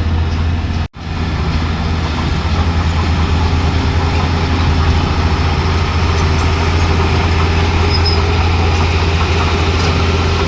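Heavy construction machine's diesel engine running steadily with a deep, even hum, cut by a brief dropout about a second in.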